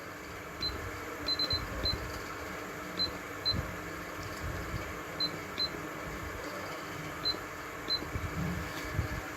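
Short, high beeps from the keypad of a Singer 9700 DX computerized sewing machine as its buttons are pressed to pick a design. There are about eleven single beeps scattered over a faint steady hum, with a quick run of three about a second and a half in.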